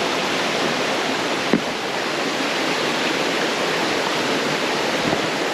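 Steady rushing of a rocky jungle stream, water pouring over stones. A single sharp click about a second and a half in.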